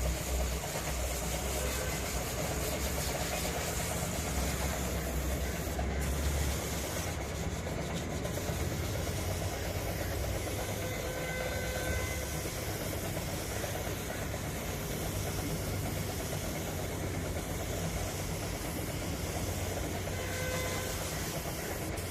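A heavy engine running steadily with a low hum, with two brief faint tones partway through and near the end.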